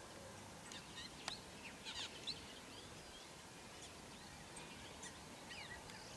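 Several small birds chirping and calling in short, quick notes, some rising or falling in pitch, faint over a steady outdoor background hiss. There is one sharp click about a second in.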